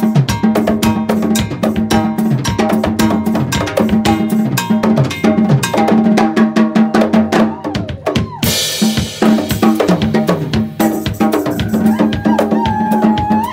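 Live band playing an instrumental groove on drum kit, djembe, bass guitar and electric guitar, with fast, steady percussion strikes over a held bass note. A cymbal crash comes about eight seconds in, and a bending guitar line near the end.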